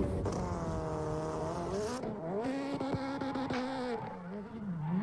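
A high-revving race engine held hard on the throttle. About two seconds in its note changes abruptly and jumps higher, then dips and climbs again as the throttle is worked.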